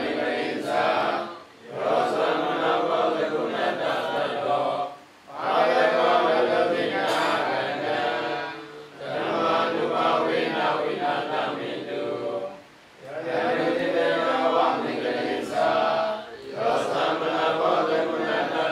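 A group of Theravada Buddhist monks chanting Pali verses in unison, in phrases of three to four seconds with short breath pauses between them.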